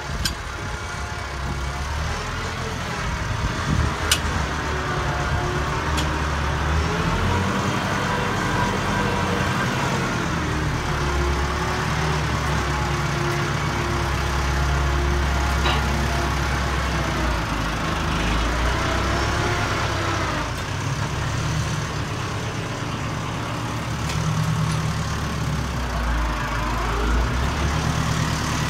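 Case IH Farmall 55A compact tractor's diesel engine running while the tractor moves and works its front loader. The engine speed rises and falls, with a whine that bends in pitch along with it. A few sharp clicks or knocks come about 4, 6 and 16 seconds in.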